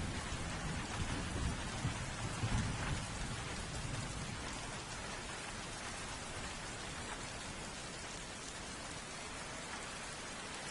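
Steady heavy rain falling, with a low rumble of thunder that dies away in the first few seconds.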